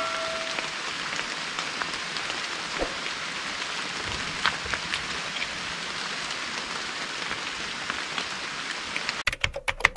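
Steady rain, an even hiss with scattered drop ticks. A metallic ringing tone dies away in the first half second, and a quick run of sharp clicks comes in near the end.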